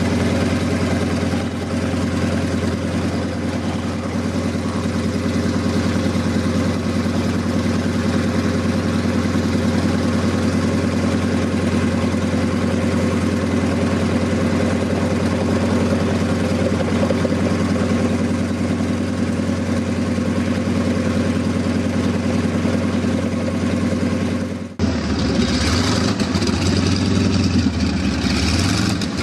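Juka Experimental (Su-26) aerobatic plane's radial engine idling steadily on the ground, propeller turning. Near the end there is a sudden break, after which the engine sound carries more hiss.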